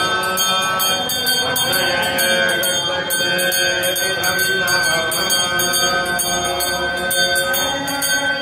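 Hand bell rung continuously during a homa fire offering, its clapper striking in a fast, even rhythm over a steady ringing tone.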